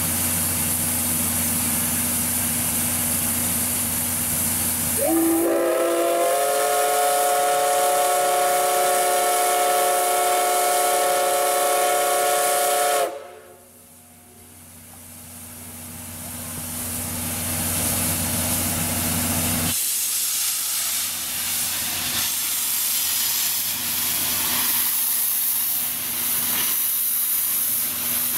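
Steam locomotive C61 20 sounding one long blast of its steam whistle, about eight seconds long and sliding up in pitch as it opens, between spells of steady steam hiss. The whistle cuts off sharply, and the steam hiss then builds again as the engine pulls away from the station.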